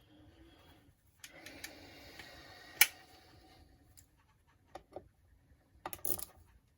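Screw being driven tight into an aluminium brace on an RC car chassis, stiff at the end because the thread is clogged with thread-lock: a couple of seconds of steady mechanical whirring with one sharp click about three seconds in, then a few light clicks and taps from the tool and parts.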